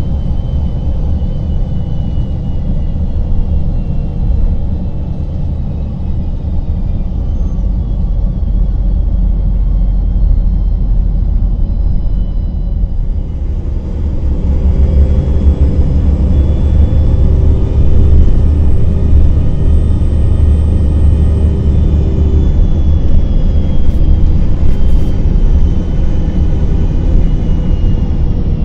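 Cummins ISM diesel engine and Voith automatic transmission of a 2000 Gillig Phantom city bus, heard from inside the bus while it drives: a steady low rumble with a faint high whine, growing louder about halfway through as the bus pulls harder.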